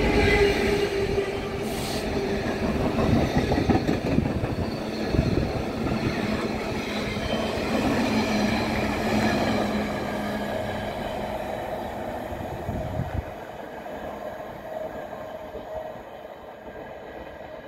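Civil engineer's train of yellow track wagons and a Matisa track machine rolling past behind a Class 66 diesel locomotive, wheels rumbling and clattering on the rails. The noise fades as the train draws away, the deep rumble dropping out about thirteen seconds in.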